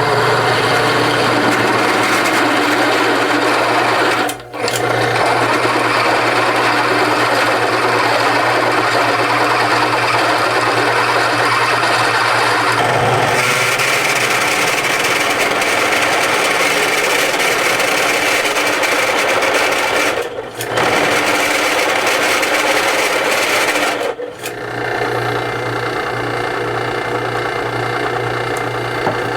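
Drill press running, its bit grinding into thick steel plate, with a steady motor hum under a dense cutting noise. The cutting dips briefly about four, twenty and twenty-four seconds in. The press is struggling for power on the cut.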